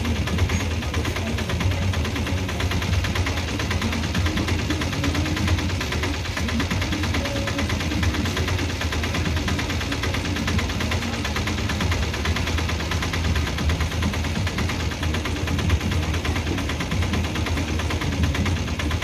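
BCN covered freight wagons rolling slowly past, their wheels running over the rails and points with a steady low rumble and a dense, rapid clatter.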